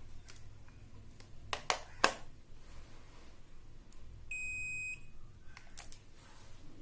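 Mastech digital multimeter's continuity buzzer giving one short, steady high beep a little over four seconds in, working again with its 250 mA fuse replaced. A few sharp clicks come before and after it, the loudest about two seconds in.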